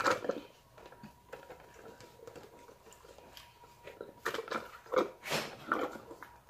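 Close-up sipping through a straw from a plastic cup and chewing, in short bursts: one at the start and a cluster of several between about four and six seconds in.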